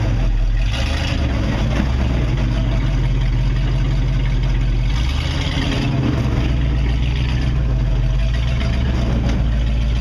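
Rock crawler's engine running under load as the truck climbs over boulders, its note shifting up and down a few times as the driver works the throttle.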